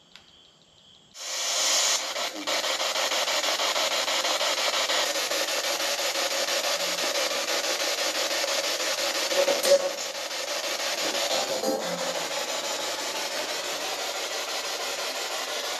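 Spirit box radio sweep giving out a loud, steady hiss of static. It starts abruptly about a second in.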